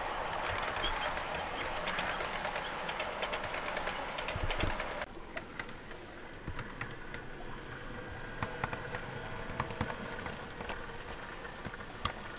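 Model train wheels rattling and clicking over the track joints as a long rake of model container wagons runs past. About five seconds in the sound drops abruptly to a quieter model diesel railcar running, a faint steady hum with scattered clicks from the wheels on the track.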